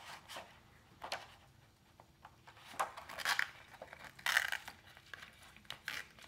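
A clear plastic face-shield lens being handled and flexed while an elastic strap is pulled through its holes: scattered short crinkles and rustles, the loudest about three to four and a half seconds in.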